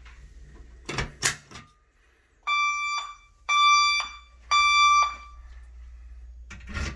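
Fire alarm sounding three short, evenly spaced tones, the temporal-3 (Code 3) evacuation signal that announces a fire report. Two sharp clicks come about a second in, before the tones.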